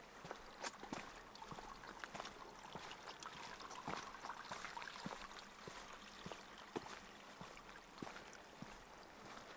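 Footsteps on a stony path, a series of light irregular steps, over a faint steady rushing hiss that swells in the middle and fades again.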